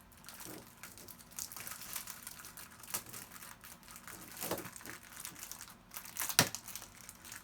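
Rustling and light clicks of small rhinestones and a rhinestone applicator wand being handled, with one sharper click about six and a half seconds in.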